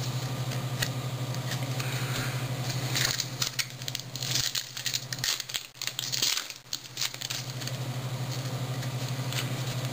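Baseball trading cards and a foil pack wrapper being handled: rustling, crinkling and sharp clicks about three to seven seconds in, over a steady low hum.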